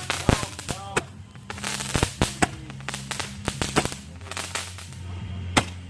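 Fireworks going off: a string of sharp, irregularly spaced bangs and crackles, the loudest near the end.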